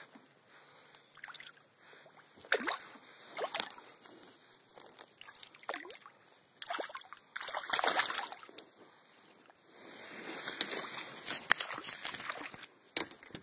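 A hooked fish thrashing and splashing at the water's surface as it is played in, in a series of irregular splashes with quiet gaps between them; the longest, loudest splashing comes about ten seconds in, as the fish is drawn up to the float tube.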